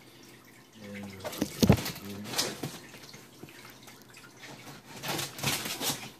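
A cardboard shipping box being set down and handled: a cluster of knocks and clatter, the sharpest about a second and a half in, then scattered clicks and a spell of rustling near the end.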